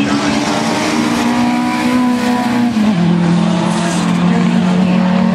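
Racing car engines running hard as cars go through a corner. The main engine note holds steady, then steps down in pitch about three seconds in.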